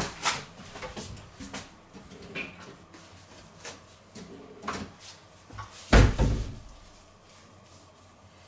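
Kitchen cabinet shut with a thump about six seconds in, after scattered light clicks and knocks from rummaging.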